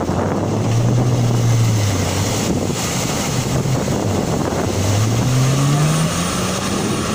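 Toyota Land Cruiser 80 on 42-inch mud tyres driving hard through a deep mud-and-water pit, engine under heavy load with mud and water churning off the wheels. About five seconds in the engine revs up, its pitch climbing steadily as the truck pulls out of the pit.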